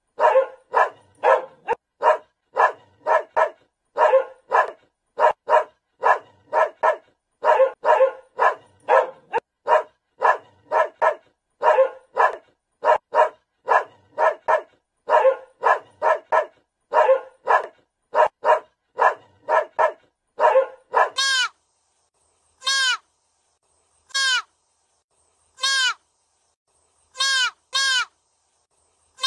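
A dog barking over and over in quick runs of short barks, about two a second. About twenty seconds in the barking stops. Deer calls follow: short bleats, one every second and a half or so, each falling in pitch.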